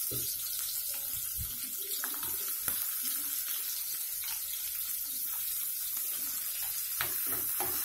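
Sliced onions sizzling in hot mustard oil in a wok: a steady frying hiss with a few small pops.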